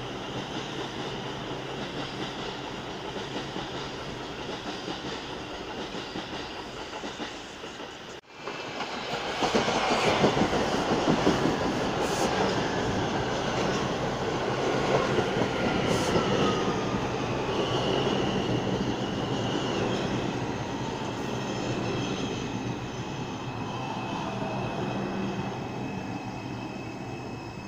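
New York City subway train (R142 cars) pulling into the station along the platform and slowing: a steady rumble at first, then, after a brief dropout about eight seconds in, louder wheel clatter and squeal with a whine that falls in pitch as the train slows, fading toward the end.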